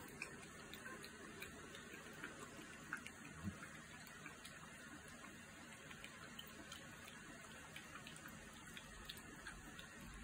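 Young puppies suckling at their mother: faint, irregular small clicks and smacks of nursing over a quiet background hiss.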